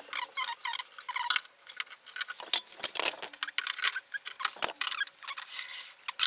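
Pencil scratching lines onto a pine board, drawn along a square in a quick series of short scratchy strokes with a few squeaks.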